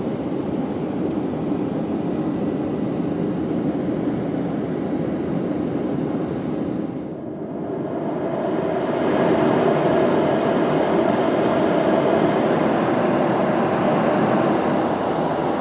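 Steady roar of a Boeing 737's jet engines and airflow heard inside the cabin from a seat over the wing. About seven seconds in it briefly drops away, then comes back a little louder.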